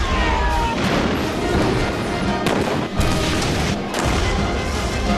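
A series of large explosions booming one after another, with a sharp blast about three seconds in, laid over background music.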